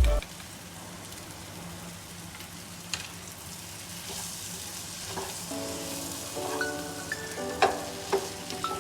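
Egg ghotala sizzling steadily as it fries, with one brief click about three seconds in. Background music comes back in a little past halfway.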